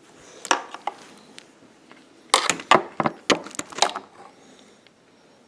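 Sharp clicks and taps of hard parts being handled: one about half a second in, then a quick run of them from about two to four seconds in.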